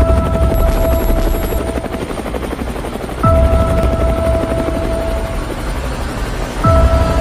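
Helicopter rotor sound effect, a steady fast chopping, in a music intro. Three deep falling booms, each with a held synth tone, hit at the start, about three seconds in, and near the end.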